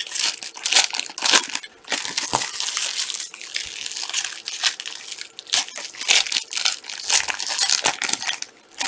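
Plastic trading-card packaging crinkling and crackling as it is handled, in quick, irregular bursts that run on without a break.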